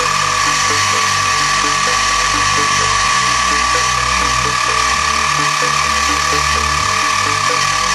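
Sieg X2 mini milling machine running under CNC control: the spindle holds a steady high whine while the stepper-driven axes hum, their tone stepping up and down every fraction of a second as the cutter feeds through the part.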